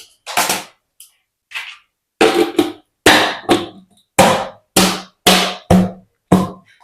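Short burst of percussive music: a loose run of sharp, pitched drum-like hits, about a dozen, with dead silence between them.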